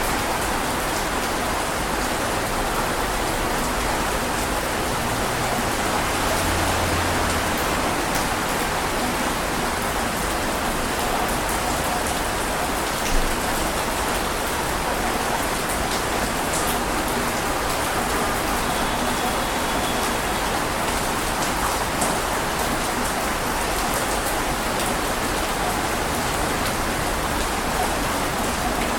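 Steady rain falling on a surface, with now and then a single louder drop tick.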